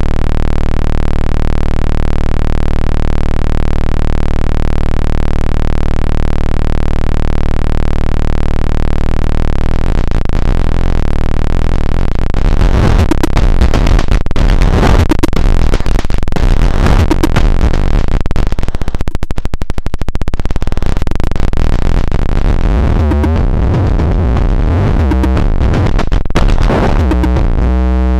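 Loud electronic noise music. A steady buzzing drone for about the first ten seconds breaks into chaotic, stuttering, glitchy noise, with a brief dropout midway and a pulsing stutter near the end.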